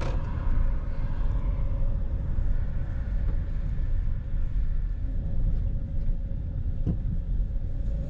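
Car running on the road, a steady low rumble of engine and tyres heard from inside the cabin, with a steady hum over it.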